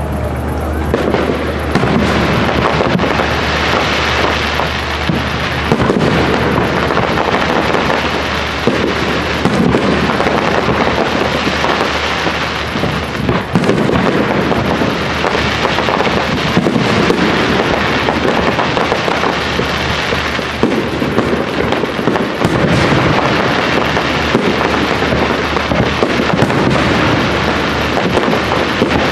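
Professional fireworks display: aerial shells bursting one after another in quick succession.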